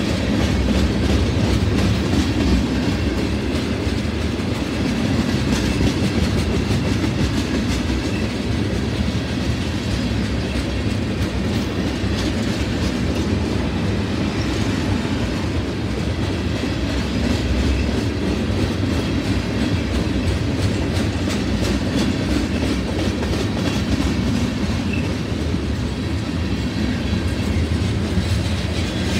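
Freight train cars rolling past at close range, tank cars giving way to covered hoppers: a steady rumble of steel wheels on rail with a running clickety-clack of wheels over rail joints.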